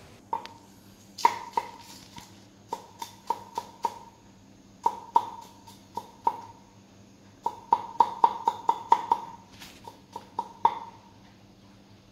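Kitchen knife chopping peeled garlic cloves on a round wooden chopping board: irregular runs of sharp knocks, each with a short wooden ring. The chops quicken to a fast run about two-thirds of the way through and stop near the end.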